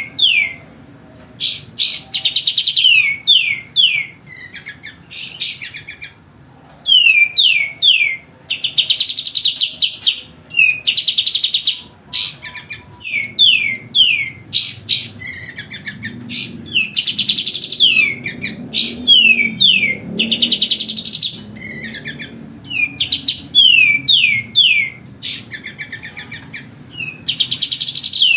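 A kapas tembak, a small bulbul, singing without letup. It repeats loud phrases of quick downward-slurred chirps mixed with fast, buzzy trills, each a second or two long, with short pauses between.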